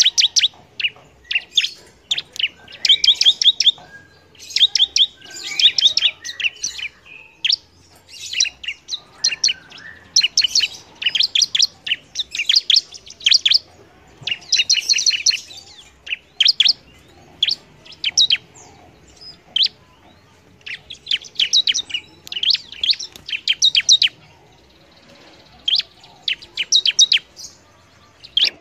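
Bar-winged prinia (ciblek) singing: fast runs of sharp, high chirps in bursts about a second long, with short pauses between.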